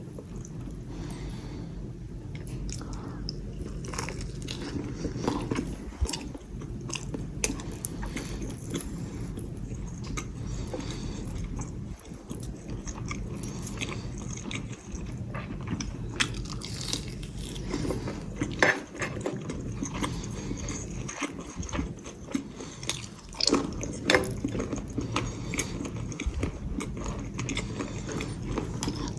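A person biting and chewing crunchy food, with irregular crunches and clicks over a steady low hum.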